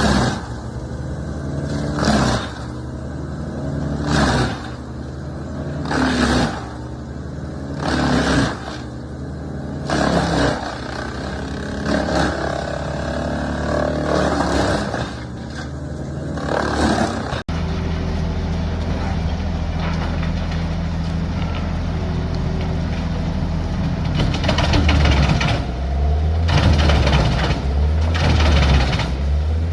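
Large engine-driven wood chipper running steadily, with a loud crunch of wood going through the chipper about every two seconds. About two thirds through the sound cuts abruptly to another steady machine engine, with rougher chipping noise building near the end.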